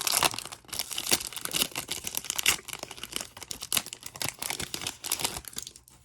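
Basketball trading-card pack wrappers crinkling and tearing as packs are ripped open by hand: a dense run of irregular crackles that stops near the end.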